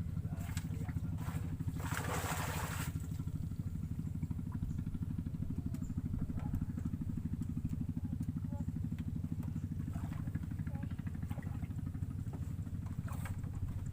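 A motor running steadily with a deep, even pulsing hum. A brief hissing rush comes about two seconds in.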